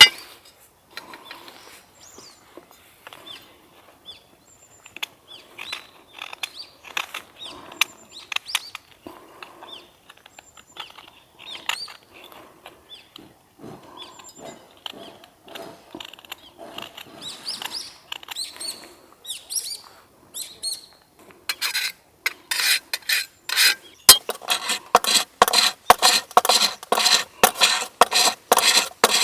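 Scattered light clicks and knocks of camp gear being handled, with faint bird chirps. About 22 seconds in, loud rhythmic rasping strokes start, about two a second, of a saw cutting wood.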